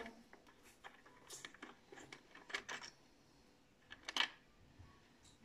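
Scattered light clicks and taps of small plastic parts being handled against an RC tank's plastic hull, the sharpest click about four seconds in.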